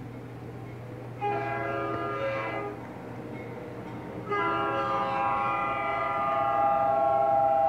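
Diesel locomotive air horn sounding two blasts, a short one about a second in and a longer held one from about four seconds in, over a steady low hum. The horn is played back from train footage on a museum video display.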